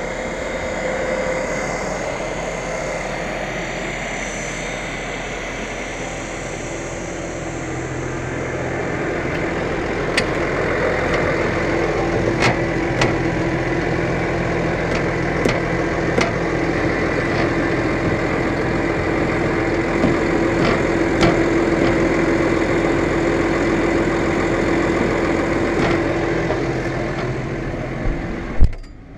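New Holland T7.245 tractor's six-cylinder diesel idling steadily, growing louder about a third of the way in, with a few sharp clicks and knocks midway. Near the end a loud bang, like the cab door shutting, and the engine turns suddenly quieter and muffled.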